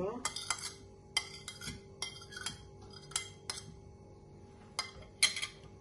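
A metal fork repeatedly clinking and scraping on a ceramic plate, pushing cherry tomatoes and chopped parsley off it: about a dozen sharp, irregular taps.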